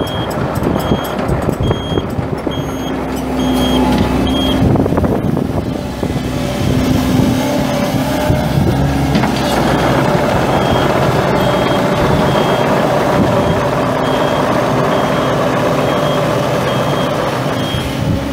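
2008 Takeuchi TB1140 excavator's diesel engine running while its travel alarm sounds repeated short beeps as it tracks. The beeps stop for several seconds in the middle and then start again.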